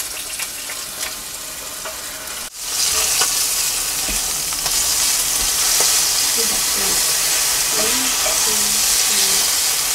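Cornstarch-dusted spot prawn heads frying in oil in a cast-iron skillet: a steady sizzle that turns louder and fuller about two and a half seconds in. Small clicks of metal tongs turning them sound over the sizzle.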